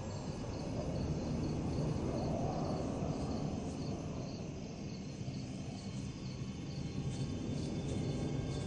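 Crickets chirping in a steady repeating pattern over a low, even rumble of night-time background noise.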